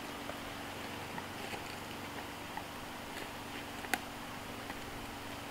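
A few faint taps and clicks from hands handling things, with one sharper click about four seconds in, over a steady low hiss and faint hum.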